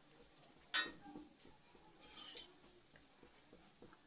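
A metal spoon clinks once sharply against steel cookware about three-quarters of a second in, followed about a second later by a brief hiss.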